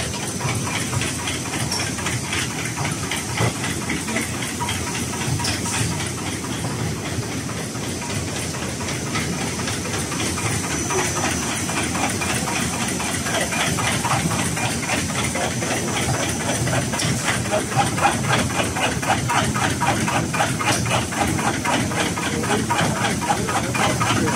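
CNC knife pleating machine running on filter media: a rapid, even clatter of the pleating knives over a steady mechanical hum and hiss of the production line. The clatter grows louder toward the end.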